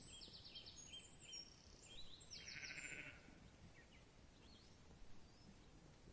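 Faint, distant sheep bleat about two to three seconds in, with small birds chirping high and faint early on.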